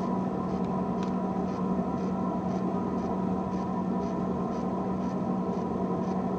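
A steady low hum with a faint hiss, unchanging throughout, with faint regular ticks about twice a second.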